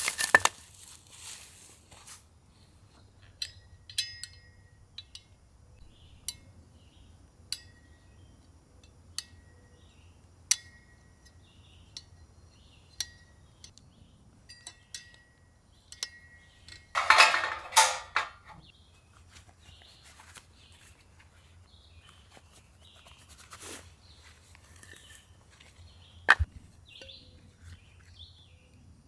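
Light clinks of camp cookware and utensils being handled, short sharp ticks with a brief ring, coming every second or two. About two-thirds of the way through there is a louder rustle of about a second.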